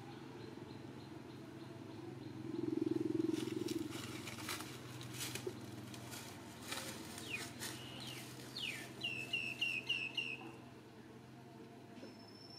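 Outdoor ambience with a steady low hum and a brief low rumble a couple of seconds in, the loudest sound here. A bird calls with a few falling chirps, then a quick run of about five short, repeated high notes near the end.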